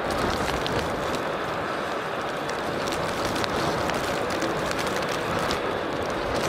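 Steady rushing noise of an airliner's jet engines at the airport, even in level throughout, with faint scattered ticks above it.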